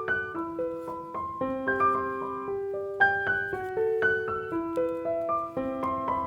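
Background piano music: a gentle melody of held notes over a simple accompaniment.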